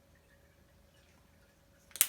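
Near silence: room tone with a faint steady hum, ending in one sharp click right at the end.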